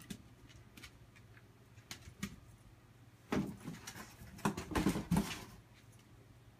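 A cardboard box being shoved, knocked and scraped across a tile floor by a dog nosing into it. Light taps and clicks come first, then a louder spell of scraping and thumping in the second half.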